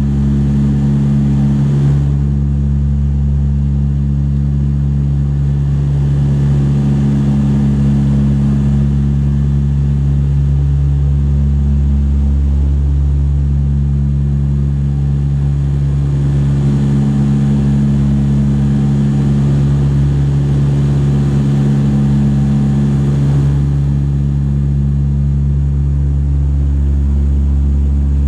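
Steady drone of a Dash 8-100's twin turboprop engines and propellers heard inside the cabin, a low hum with a few steady tones and an even rush of noise above them.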